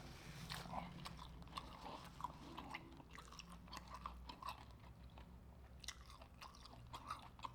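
Close-miked chewing of hot honey fried seafood, with scattered small crunches of the fried batter and wet mouth sounds.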